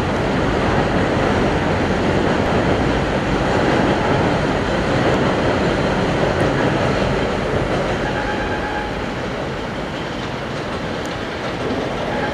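New York City Subway 2 train running on the elevated line: a steady loud rumble and rattle of the cars, easing off slightly after about eight seconds, with a faint high tone over it.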